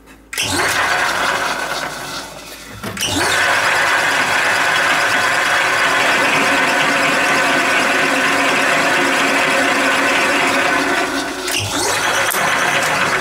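Metal lathe starting up and running, with a drill held in the tailstock boring into the spinning part in the chuck. The motor winds up about half a second in, eases off briefly around two to three seconds, then comes back up and runs steadily.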